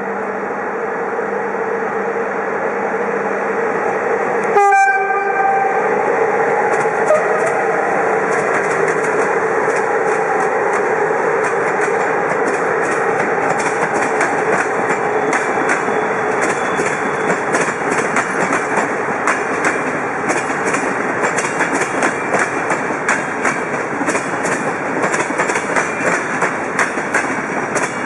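Train running past on the station tracks, a steady rumble with rapid wheel clicks over the rail joints that build up after about six seconds. A single sharp knock comes about five seconds in.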